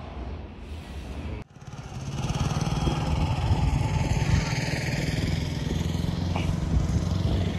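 Quiet room hum, then about a second and a half in an abrupt change to a motor vehicle engine running steadily. It is a low, even drone with a rushing hiss over it.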